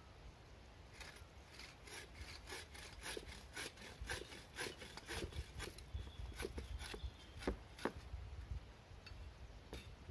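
Hand saw cutting through a wooden pole, rasping back and forth at about three strokes a second, stopping about eight seconds in once the cut is through.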